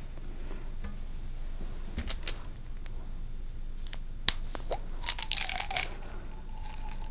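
Plastic prescription pill bottle being handled and opened: a few small clicks, a sharp snap of the cap about four seconds in, then a brief clatter of small hard items, like pills rattling, about a second later.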